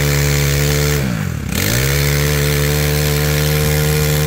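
Makita MEM2650UHT four-stroke brush cutter engine revved to a high steady speed. About a second in the throttle is let off and the pitch falls briefly toward idle, then it is revved back up and held.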